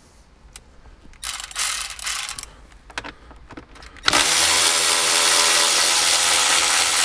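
Cordless electric ratchet with a 10 mm socket backing out a dash bolt: a short run about a second in, then a steady motor whine for about three and a half seconds from about four seconds in.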